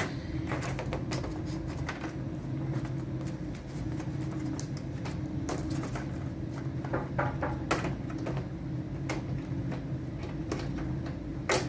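Scattered light clicks and taps of parts being handled during a TV teardown, over a steady low hum.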